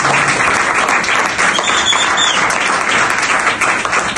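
A small audience applauding steadily, many hands clapping at once.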